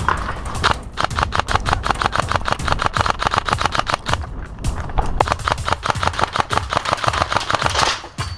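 Rapid airsoft gunfire: electric airsoft rifles firing fast strings of sharp clicking shots, about ten a second. It breaks out suddenly and pauses briefly near the end.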